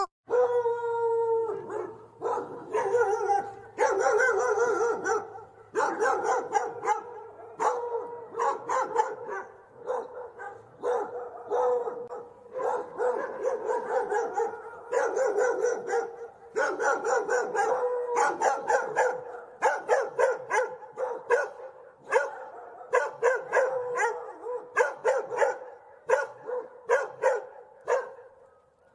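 A dog barking, yipping and howling: a long, irregular run of short barks and yips, broken by a few longer drawn-out howls.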